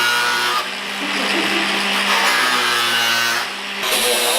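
Power tool cutting through the car's sheet-metal rear guard, running steadily and easing off briefly twice.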